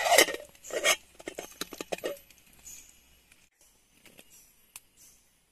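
Camp cookware handled: two short metal scrapes, then a quick run of light clinks, fading to a few faint ticks.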